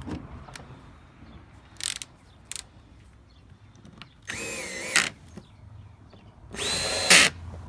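Plastic access cover of a Champion inverter generator being fitted back on: a few small clicks, then two rasping slides, the second louder and near the end.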